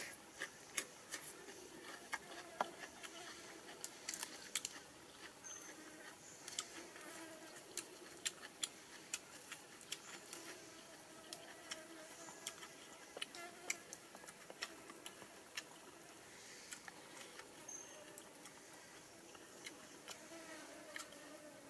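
Eating sounds: crisp crunches and sharp irregular clicks of raw cucumber being chewed and fresh leaves being handled, over a faint wavering insect buzz.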